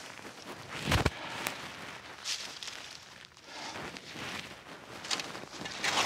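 Rake scraping and dragging dry fallen leaves in a series of irregular swishes, with a sharper thump about a second in.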